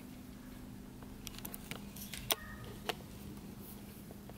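A handful of light clicks and taps as small parts are handled, the sharpest about two seconds in, over a faint steady hum.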